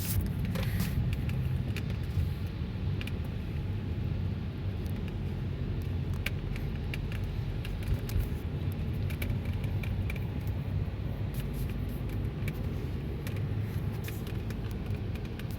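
Steady low rumble of a car driving, heard from inside the cabin, with scattered faint clicks throughout.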